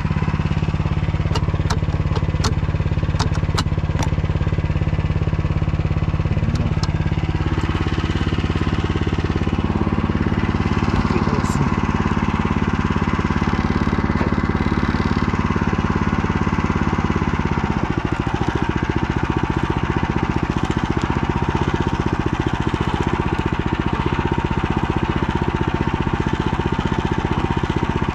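Motor Sich walk-behind tractor engine running steadily under way. Its pitch drops to a lower engine speed about 18 seconds in. A few sharp clicks or rattles sound in the first few seconds.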